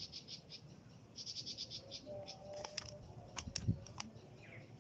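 Rhythmic chirping call of a small animal, high-pitched pulses about seven a second, in two bursts in the first half. A few sharp clicks follow in the second half.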